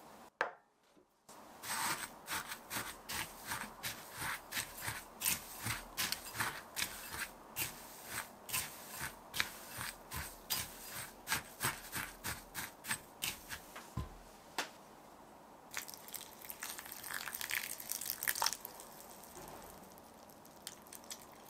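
A utensil working food in a bowl with quick, regular strokes, about two to three a second, as ingredients are mixed. Near the end it turns to a denser run of scraping.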